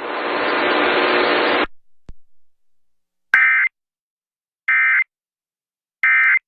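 A stretch of hissing broadcast noise that cuts off abruptly, then three short identical warbling data-tone bursts about a second and a third apart: the Emergency Alert System end-of-message (EOM) code that closes a flash flood warning.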